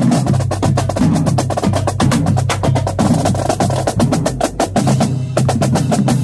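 Marching drumline playing a fast cadence: rapid snare strokes and rolls over pitched bass drum notes.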